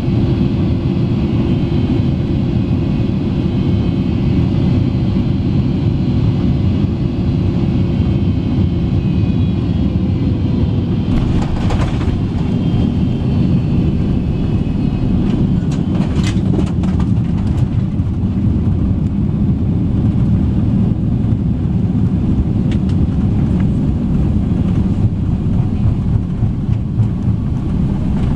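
Cabin noise of a Boeing 777-300ER touching down and rolling out on the runway: a loud, steady, low rumble. A few sharp rattles and knocks come through it around the middle.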